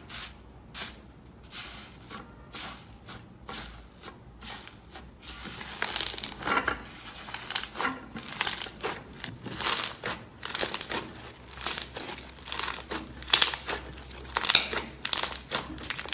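Slime being squished and pressed, a run of short crackly squelches, quiet at first and louder and more frequent from about six seconds in.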